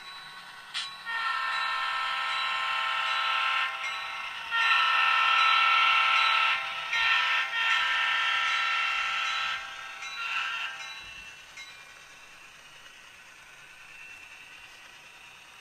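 Train horn sounding a crossing-style sequence: two long blasts, a short one and another long one, then a brief final toot, with the chord held steady in each blast.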